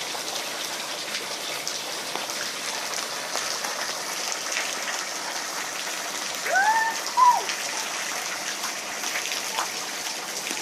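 Steady rain falling, with scattered individual drop hits. About six and a half seconds in, two short rising-and-falling calls stand out above the rain.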